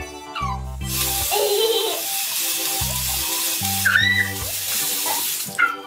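Bathroom sink tap running, water pouring into the basin as a steady hiss that starts about a second in and stops just before the end, over background music. A few brief high squeals come over the water.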